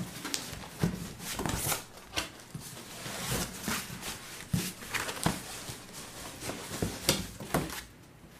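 Cardboard boxes scraping, rustling and bumping as a boxed robot vacuum is worked out of its cardboard shipping carton: an irregular run of short knocks and scuffs.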